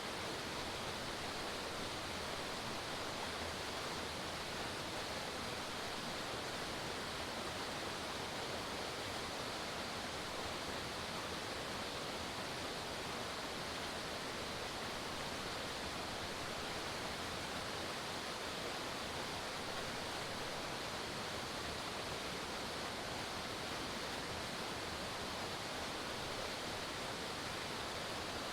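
Forest waterfall: a steady rush of falling water, unchanging throughout.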